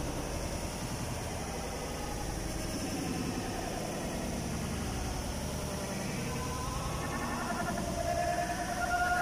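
Steady crowd noise of a busy night market: indistinct chatter of passers-by over a low rumble, with voices growing louder near the end.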